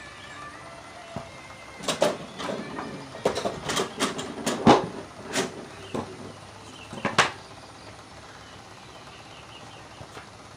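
A run of about a dozen sharp clacks and knocks of hard objects, irregularly spaced over about five seconds and loudest near the middle, then only a low background.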